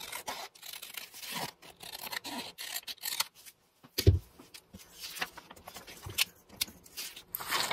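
Scissors cutting through a sheet of paper in a run of short crisp snips. About four seconds in there is a single thump, followed by paper being slid and shuffled.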